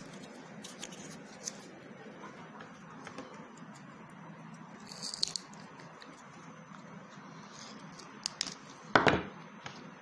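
Side-cutting pliers snipping pieces off a thin white plastic strip: scattered sharp clicks over a steady background hiss, the loudest a sharp knock about nine seconds in.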